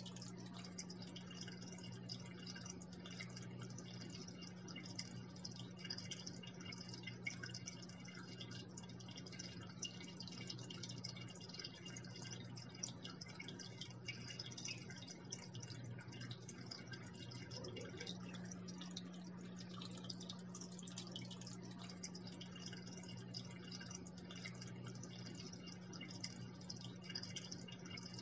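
Water falling and trickling into an aquarium: a steady fine splashing with many small drips, over a low steady hum.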